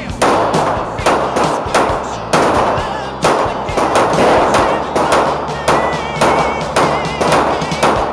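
Gunfire: a string of sharp shots at an uneven pace, roughly one to two a second, over background music.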